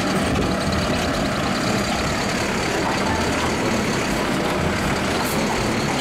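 Mack automated side-loader garbage truck, its diesel engine running at a steady level while its arm picks up and lifts a wheeled trash cart to empty it into the hopper.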